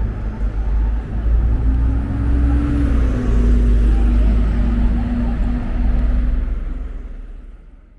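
City street traffic: a steady low rumble of vehicles with a held engine-like tone for a few seconds in the middle, the whole sound fading out near the end.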